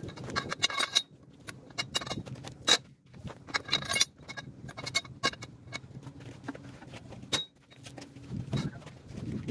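Metal clinks and knocks of a long wrench's socket going onto a Mercedes-Benz truck's wheel nuts and being worked around the wheel, in quick clusters near the start and around four seconds, with single sharp clanks between.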